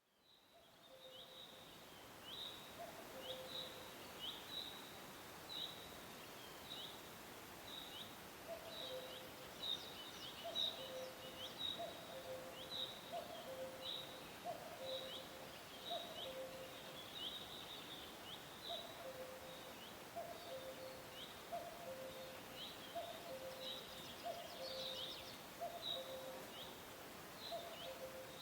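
A cuckoo calling its repeated two-note falling 'cuck-oo' over and over, with another small bird giving short high chirps in quick succession over a steady faint hiss of forest ambience.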